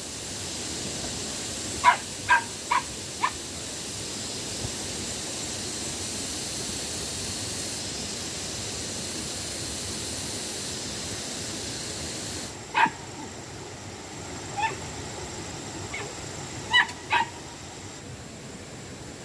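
A dog barking in short, sharp barks: four in quick succession about two seconds in, then single and paired barks later on, over a steady high hiss that drops off about two-thirds of the way through.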